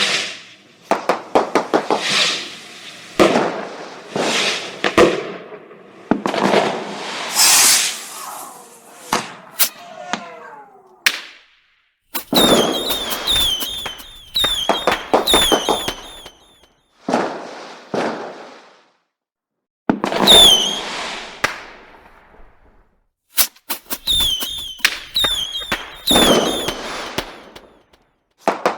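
Fireworks going off: a string of sharp bangs and crackling bursts, each dying away. About halfway through and again near the end come runs of short falling whistles, many in quick succession.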